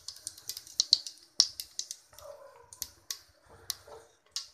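Cumin seeds crackling in hot oil in a pressure cooker: sharp, irregular pops, several a second. This is the jeera tempering spluttering as the seeds fry.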